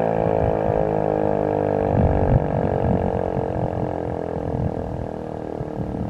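ASC T-128 outdoor warning siren winding down: its steady wail slowly drops in pitch and fades. A low, rough rumble comes in about two seconds in.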